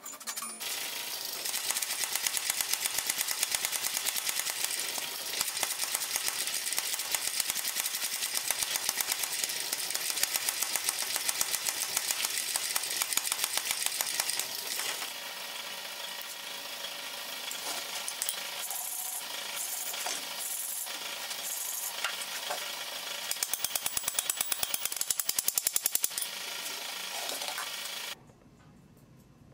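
Mechanical power hammer pounding a glowing bar of steel stock in rapid, even blows, easing off partway through, hammering hard again near the end, then stopping suddenly.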